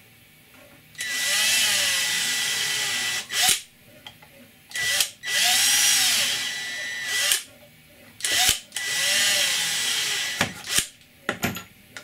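Cordless drill boring M4 clearance holes through a Lexan (polycarbonate) panel through a drill template, in three runs of about two seconds each with a steady high whine. Short knocks come between the runs.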